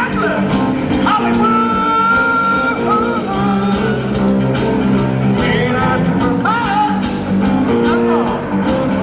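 Live rock band playing, with drums, bass and electric guitar under a singing voice; there is a steady beat and bending lead notes.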